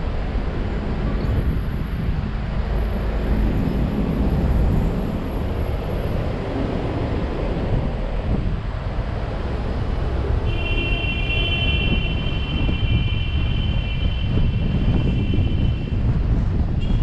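Car driving on city streets: a steady low rumble of road and wind noise. From about ten seconds in, a steady high-pitched tone is heard for about five seconds.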